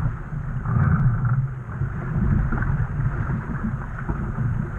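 Wind buffeting the microphone over water rushing along the hull of a Laser Vago sailing dinghy under way, a steady low rumble with a fainter hiss of spray.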